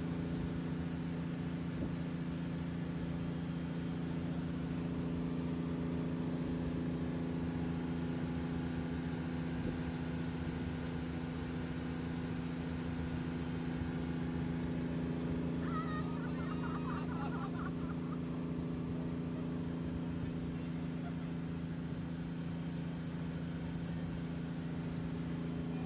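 Tow boat's engine running at a steady pull, a low even drone with a wash of water noise over it. A brief wavering higher sound rises over it about sixteen seconds in.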